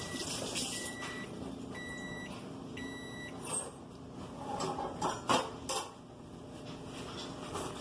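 Microwave oven beeping four times, about once a second, each beep a steady high tone; a few knocks follow about five seconds in.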